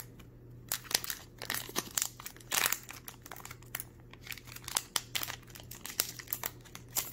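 Plastic booster-pack wrapper of a Magic: The Gathering promo pack crinkling and rustling in the hands as the pack is handled and the cards are taken out, in an irregular run of sharp crackles.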